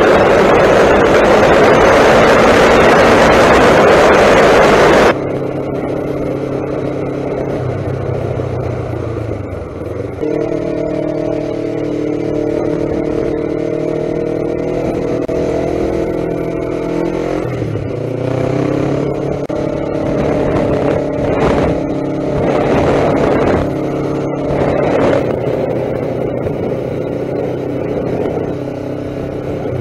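Wind rushing over the microphone at road speed, cutting off abruptly about five seconds in. Then the Kawasaki ER-5's parallel-twin engine runs at lower speed, its note dropping and rising several times.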